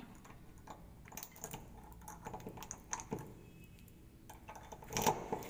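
Faint, irregular small clicks and rustles that come closer together and louder about five seconds in.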